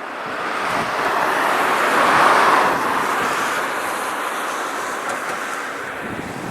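Electric local train passing at speed, the rush of its wheels on the rails swelling to its loudest about two seconds in and then slowly fading.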